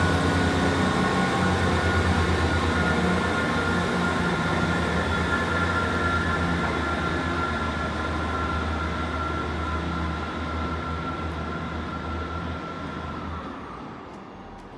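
Two coupled Class 150 Sprinter diesel multiple units pulling away, their underfloor diesel engines giving a steady low drone that fades as the train draws off, dying away near the end.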